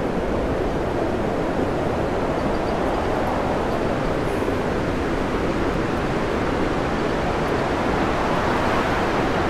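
Storm wind and heavy breaking seas around a tanker at sea: a steady, dense rush of noise with wind on the microphone.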